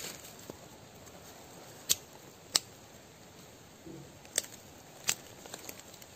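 Pruning shears snipping small roots and twigs at the base of a sapling: four sharp, separate clips spread through a few seconds, with soft rustling of soil and leaf litter between them.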